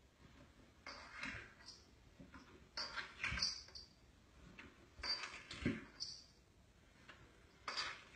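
A cat's body scuffing and bumping down bare wooden stair treads as it slides a step at a time: a few short bursts of rubbing with soft thumps, about every two seconds.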